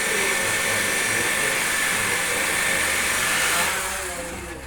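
An electric power tool's motor running steadily with a hissing whir, then fading out over the last second.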